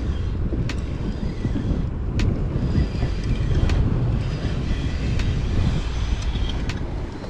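Wind buffeting the microphone as a low rumble, with a sharp tick about every second and a half.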